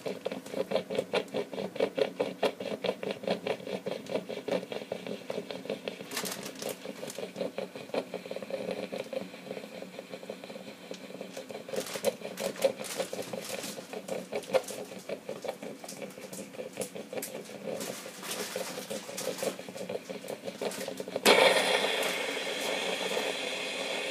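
Sanyo ECJ-MK10 rice cooker venting steam in rapid rhythmic puffs, chuffing like a steam locomotive. About three seconds before the end it changes suddenly to a louder, steady hiss of steam.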